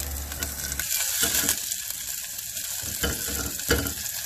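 Garlic and cut chilli sizzling in hot oil in a pot while being stirred with a silicone spatula, with a couple of light knocks of the spatula against the pan a little after three seconds in.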